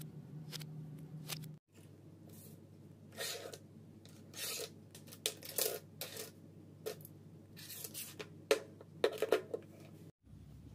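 Pencils and small drawing tools being handled and set down on a wooden tabletop: scattered light clicks, taps and brief rustles.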